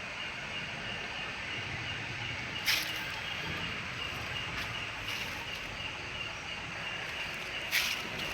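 Night insects, crickets by their sound, chirring steadily in one high continuous tone, with two brief scuffs, about three seconds in and near the end.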